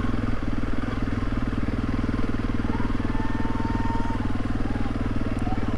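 Honda CRF300 Rally's single-cylinder engine running steadily at low speed while being ridden, a low, even pulsing.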